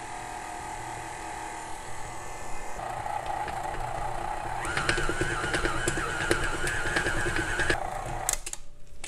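A KitchenAid stand mixer motor runs steadily with its beater working through stiff sugar cookie dough. Its whine steps up in pitch twice as the speed is raised, with clicking from the beater in the dough, then cuts off about eight seconds in.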